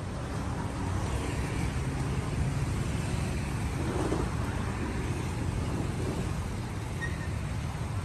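Steady street traffic, with motorbikes and cars passing and a continuous low rumble.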